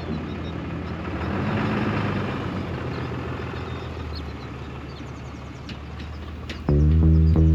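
Diesel pickup truck engine running steadily with a low hum and road noise. Near the end a much louder, low sustained pitched tone comes in.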